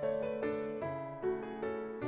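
Background piano music: a gentle melody of single notes struck about every half second, each ringing and fading.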